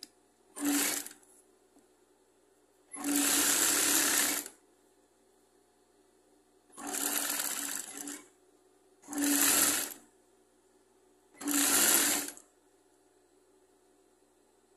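Straight-stitch sewing machine stitching a waistband seam in short runs: five bursts of half a second to a second and a half each, stopping in between.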